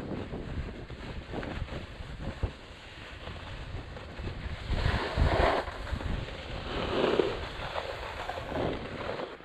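Wind buffeting the microphone over the hiss of skis sliding on snow, with louder swells of scraping about five and seven seconds in as the skis turn.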